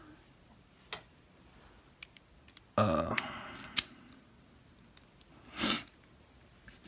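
Small metal parts of a DOM RS8 lock cylinder being handled: scattered sharp clicks, then a short cluster of handling noise with two crisp metallic clicks a little past the middle. A brief puff of noise comes near the end.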